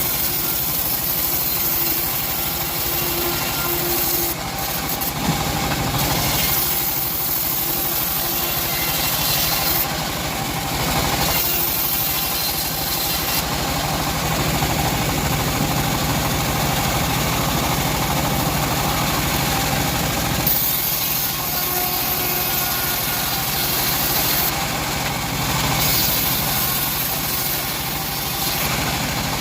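Band sawmill running steadily with a continuous engine-like drone, sawing teak wood.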